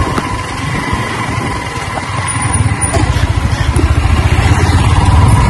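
Yamaha R15's single-cylinder engine running under way, with wind and road noise on wet tarmac; the engine gets louder about halfway through as the bike pulls harder.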